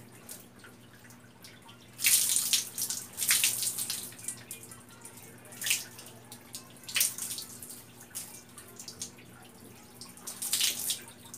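Water poured from a plastic bath dipper splashing over a person's body and onto the floor, in several separate pours: the longest about two seconds in, others following every second or few. A faint low hum runs underneath.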